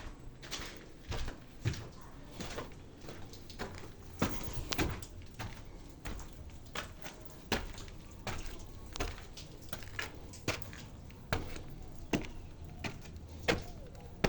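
Irregular sharp knocks and clacks, one to three a second, some louder than others.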